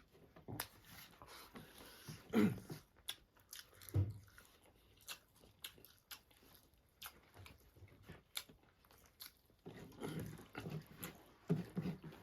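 Close-up eating sounds: chewing and crunching, with many short mouth and utensil clicks and a few louder bites.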